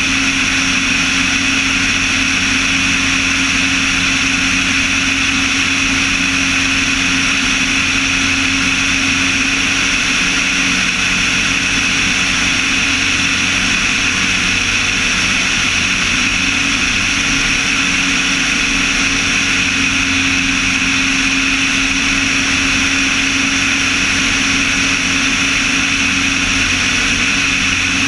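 Light aircraft's engine and propeller running steadily in level flight, with rushing airflow over the camera mounted outside on the airframe.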